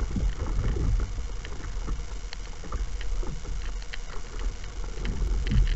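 Water sloshing and splashing against the hull of a small paddle craft under way, with sharp little splashes scattered through it. A steady low rumble of wind on the microphone runs underneath.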